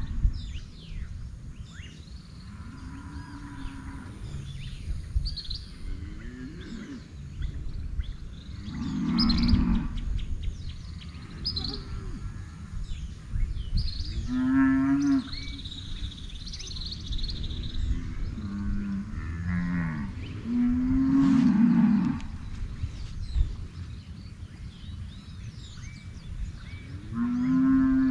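Cattle mooing: several low, drawn-out moos a few seconds apart, with small birds chirping faintly between them.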